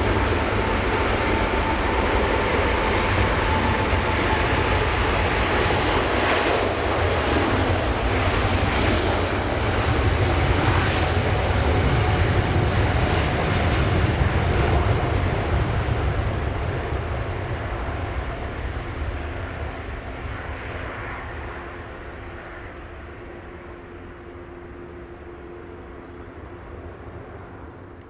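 Boeing 747-8F freighter's four GEnx turbofans at takeoff thrust, heard through the takeoff roll and lift-off: loud jet noise with a fan tone sliding slowly lower in pitch as the aircraft passes. The sound then fades steadily over the last ten seconds or so as it climbs away.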